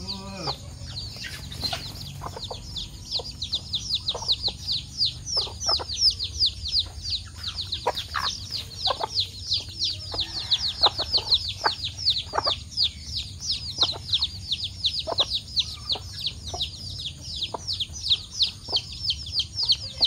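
Young chicks peeping continuously, a rapid run of short, high-pitched, falling peeps at about four or five a second, with scattered short sharp taps.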